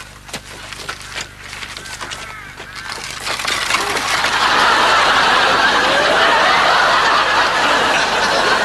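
A few knocks and creaks, then an audience laughing, swelling about three seconds in and staying loud.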